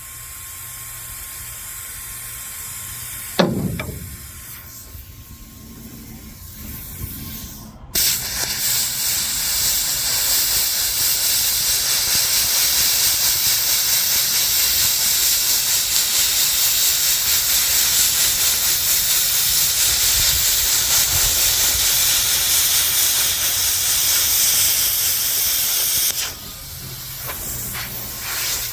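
Miller plasma cutter cutting a steel bracket: a loud, steady hiss that starts suddenly about eight seconds in and breaks off shortly before the end. Before it there is a quieter hiss and a single loud knock about three seconds in.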